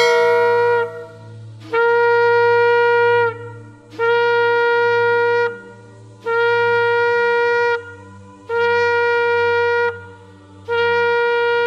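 A shofar sounding a series of long blasts, each held on one steady note for about a second and a half, repeated roughly every two seconds, six times in all.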